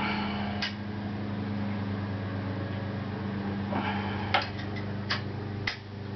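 Hand tools working the fork's lower triple-clamp pinch bolt: two short rasping stretches and four sharp clicks, three of them close together near the end, over a steady low hum.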